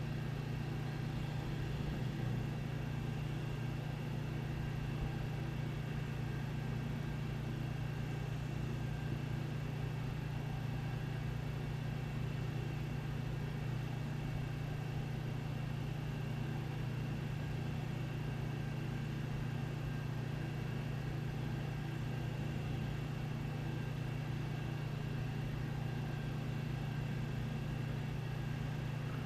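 Steady low mechanical hum of household background noise, with a faint high whine above it and no change in level.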